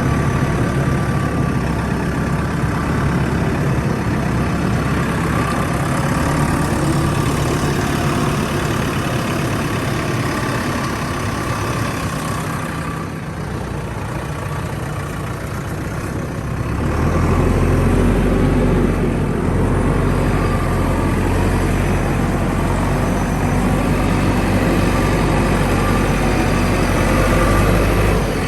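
JCB 3DX backhoe loader's diesel engine running continuously. It dips slightly a little before halfway, then grows louder and deeper about two-thirds of the way in.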